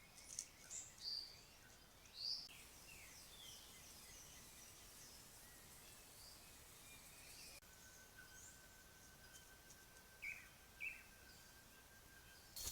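Faint forest ambience with scattered short bird chirps and down-slurred call notes. About halfway through a faint, thin, steady tone sets in.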